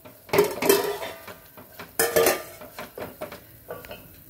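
Wooden stirring paddle knocking and scraping against a stainless-steel pot, with steel vessels clinking, in a few separate bursts; the loudest comes about two seconds in, followed by smaller knocks.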